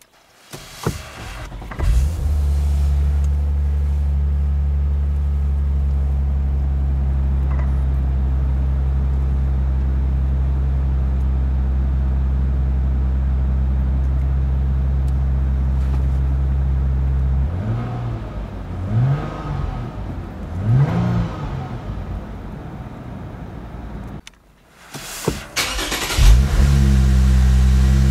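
Lexus IS350's 3.5-litre V6 breathing through a Tanabe aftermarket exhaust, heard from inside the cabin: a cold start, then a steady fast idle. About 18 s in the throttle is blipped twice, the pitch rising and falling each time. After a sudden cut the engine is started again and idles steadily, louder than before.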